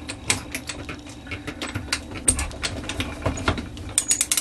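Clock mainspring winder's ratchet clicking unevenly as it is worked in the reverse direction, turning into a fast, continuous run of clicks near the end as the wound mainspring is let down into its barrel.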